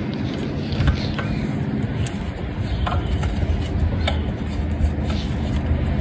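A screwdriver working on the ignition coil's screws inside the distributor gives a few light, scattered metal clicks over a steady low rumble.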